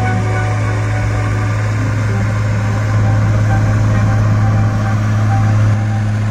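Volvo single-drum soil compactor's diesel engine running with a steady, loud low hum, rolling over a gravel road base. The sound grows louder about halfway through and dips briefly near the end.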